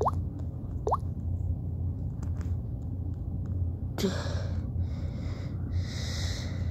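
Two quick rising plop-like blips in the first second, over a steady low hum. About four seconds in, a breathy hiss starts suddenly and lasts about two and a half seconds.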